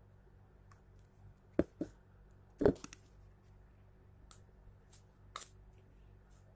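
Handling noises: a few sharp clicks and knocks, the loudest about two and a half seconds in, as a small spice jar is handled and set down, then fainter light taps from a metal spoon against a plastic bowl.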